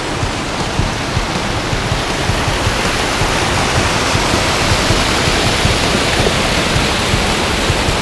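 Creek water rushing over a small waterfall between rock ledges: a steady, loud rush of falling water.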